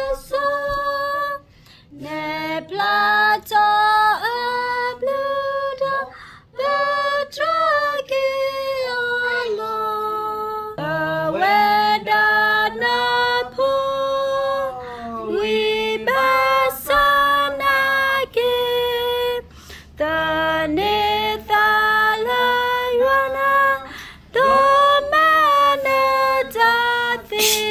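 Women and children singing a song together, phrase by phrase, with short breaks between the phrases.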